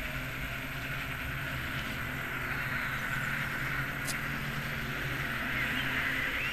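Mo-Bo electric off-road skateboard rolling over a concrete track: a steady hiss of its tyres with a faint low hum, growing slightly louder toward the end.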